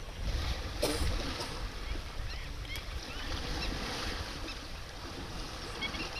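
Water sloshing and splashing as an elephant swims and dips its head under the river surface, with one sharper splash about a second in. A low wind rumble on the microphone runs underneath.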